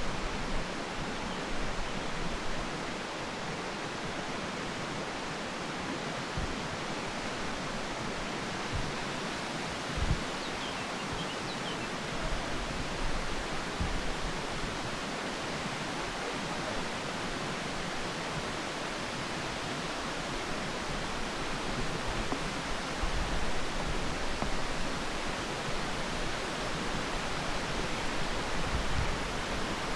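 Steady rushing of a mountain stream, with occasional low thumps and a few faint high chirps about a third of the way in.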